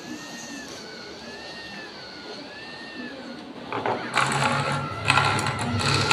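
Small electric motor of a model lift starting up about four seconds in and running with a loud, gear-like rattle and a low hum. Before it, a faint tone warbles up and down about once a second.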